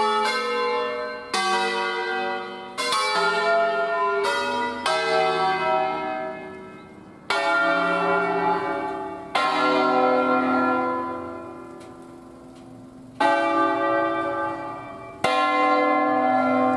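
Church bells of an eight-bell peal in C, cast by Luigi Cavadini in 1925, swung on their wheels and rung by hand. Loud, clear bell strokes come one after another at uneven intervals of about one to four seconds, each ringing on under the next.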